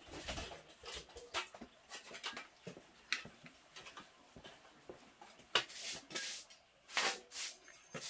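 Handling noises and footsteps as a person works at a metal wood-burning stove: irregular knocks and scrapes, with two louder bursts of noise about five and a half and seven seconds in.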